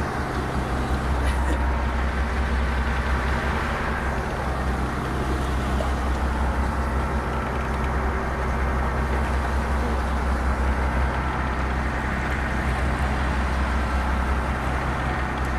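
Fishing boat's engine running at a steady low drone.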